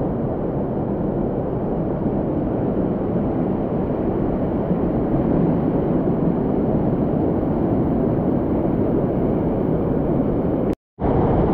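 Steady rushing of a mountain canyon torrent, a dense even noise without tones, broken by a split-second dropout near the end.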